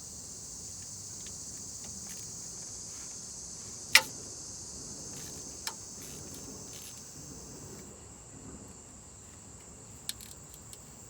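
Crickets chirping steadily in the background, with a few sharp clicks on top. The loudest click is about four seconds in, and two fainter ones follow.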